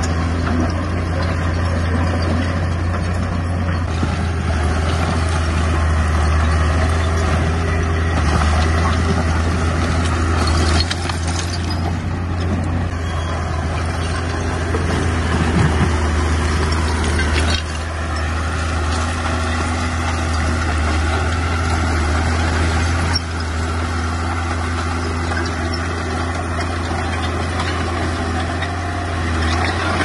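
Bulldozer's heavy diesel engine running steadily as it works, with a strong low drone; its level drops a little a few times.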